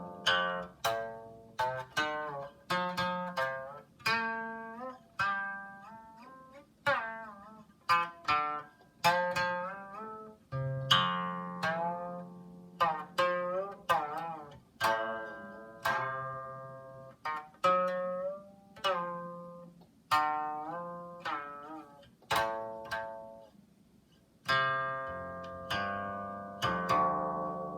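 Solo Chinese zither music: single plucked notes ring out and fade one after another, many of them sliding in pitch after the pluck.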